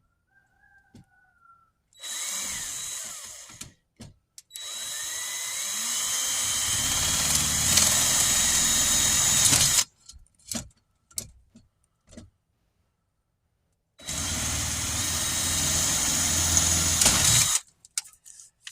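Power drill boring new holes through a storm door for the handle: a short run, then a longer run of about five seconds that grows louder as the bit cuts, then another run of about three and a half seconds, with small clicks and knocks in between.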